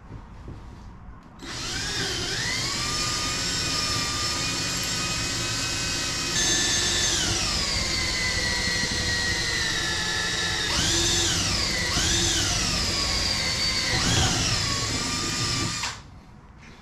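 Cordless drill running at speed, drilling aluminium. Its whine sags in pitch as the bit bites, about a third of the way in, and dips and recovers three more times near the end before it stops.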